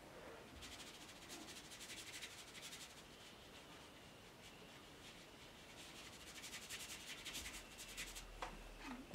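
Faint scratchy rubbing of a watercolour brush worked across paper in short repeated strokes, in two spells with a pause between them.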